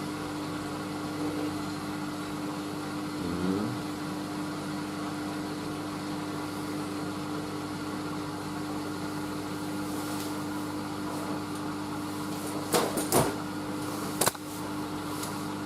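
Hoover Whisper 1600 washing machine motor turning the drum with a steady hum as it tries to balance an unbalanced heavy load before the intermediate spin. Near the end come a few loud knocks.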